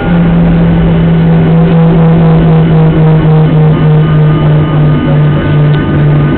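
Music playing over the steady low hum of an airliner cabin.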